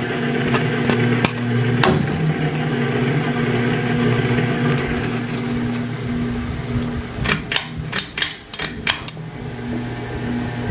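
Harbor Breeze Marco Island ceiling fan running with a steady electrical hum from its motor, loud enough to be noticeable though not loud enough to make the fan unusable. About seven seconds in, a rapid series of about eight sharp clicks lasts under two seconds.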